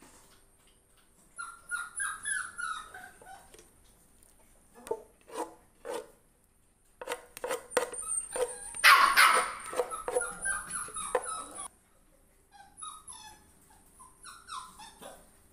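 Puppies whining and yipping in short falling squeals, with a run of quick short barks in the middle and a louder bark about nine seconds in.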